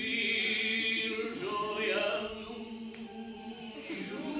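Several voices singing together, holding long notes.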